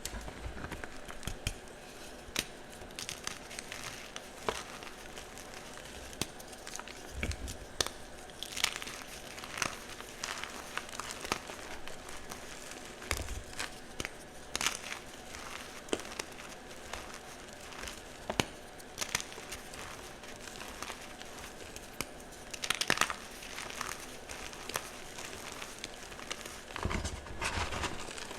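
Soft chalk blocks being crushed and crumbled: irregular crisp cracks and crunches, with denser bursts of crumbling every several seconds and a few low thumps.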